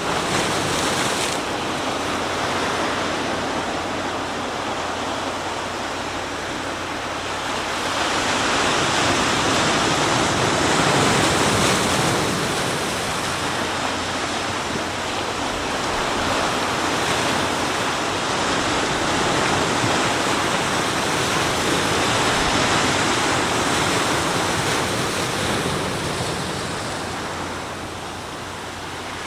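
Sea surf breaking and washing onto the shore: a continuous rushing that swells with each set of waves, loudest about a third of the way in and again past the middle, easing off near the end.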